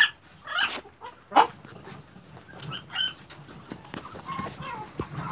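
Newborn Shih Tzu puppies squeaking and whimpering in short, high cries, about half a dozen of them, the loudest right at the start and about a second and a half in.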